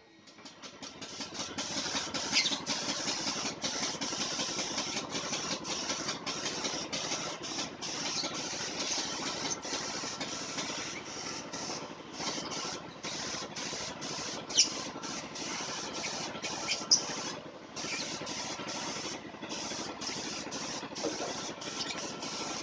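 Compressed-air paint spray gun spraying, a steady hiss broken by many short gaps.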